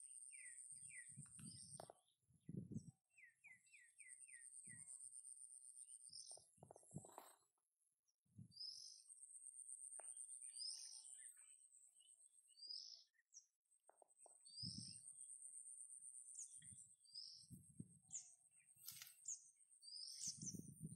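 Birds chirping: short repeated calls and two quick runs of falling notes, over a steady high-pitched trill that starts and stops, with faint low thumps.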